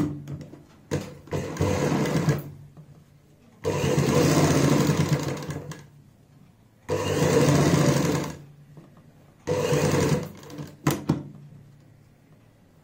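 Domestic sewing machine stitching in four short runs, stopping in between while the fabric is turned, with a couple of clicks after the last run and then quiet. It is topstitching the edge of a turned kurti neckline.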